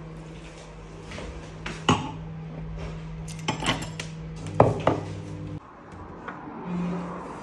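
Ice cubes tipped from a ceramic mug clinking into a wine glass, with a few sharp clinks and knocks of glass and crockery, the loudest a little past the middle. A steady low hum runs underneath and cuts off near the end.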